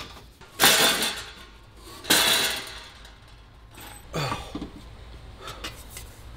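Metal exhaust pipes from a Bugatti Veyron clanking and rattling as the assembly is worked loose and lifted out of the engine bay. There are two loud clatters, about half a second and two seconds in, a weaker knock about four seconds in and a few light clicks near the end.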